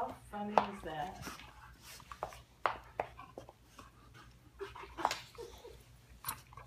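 Two dogs play-biting, a small dog mouthing and pawing at a larger dog's muzzle: scattered short clicks and rustles, with a brief vocal sound in the first second.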